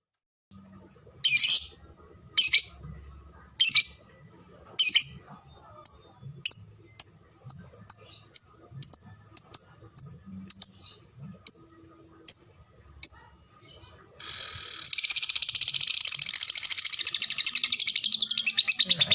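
Lovebird calling: a series of sharp single chirps ("ngetik"), about one a second at first and quickening to about two a second, then breaking into a long, unbroken, rapid chattering trill ("ngekek") for the last few seconds.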